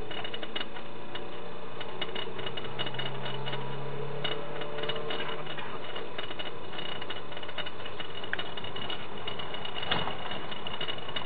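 Cabin noise of a public-transport van on the move, picked up by its onboard security camera: a steady low engine hum with a rapid, irregular clicking rattle from the body and fittings. A sharper knock comes near the end.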